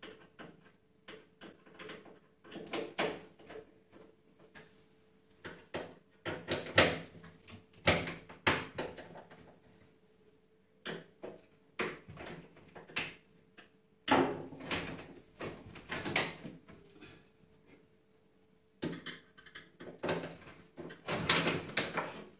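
Scattered knocks, taps and clatter of a wooden wardrobe door and panels being handled as the wardrobe is dismantled, with the loudest knocks about a third of the way in and again near the end.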